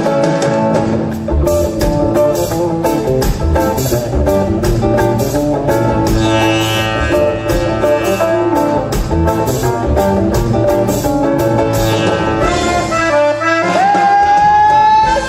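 A band's instrumental passage: plucked guitars with a steady drum beat. Near the end a single note slides up and is then held.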